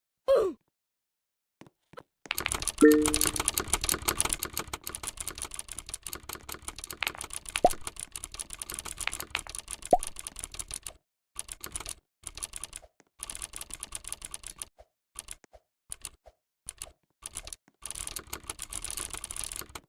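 Fast typing on a computer keyboard: a dense clatter of key clicks for several seconds, then stop-start bursts of keystrokes, with a couple of short pitched blips in the middle.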